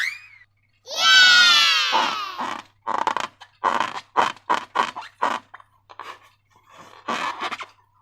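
Rubber balloon squealing for over a second with a falling pitch, followed by a run of short squishing sounds, about three a second, from slime and balloon being worked by hand.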